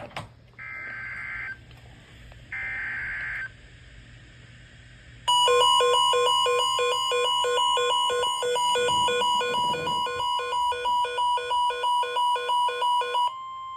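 Electronic emergency weather alert tone for a severe thunderstorm warning. It begins with two short tones, each just under a second long. About five seconds in, a loud alarm tone made of several pitches starts pulsing a few times a second for about eight seconds, then gives way near the end to a single steady tone.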